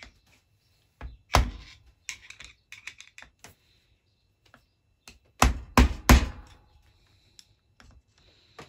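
Hammer tapping a flathead screwdriver set against the jaws of a jammed keyless chuck on a DeWalt 18V cordless drill, to knock a stuck jaw back into place. A loud metallic knock comes about a second in, then a patter of lighter clicks, then three loud taps in quick succession around the middle, followed by a few light clicks.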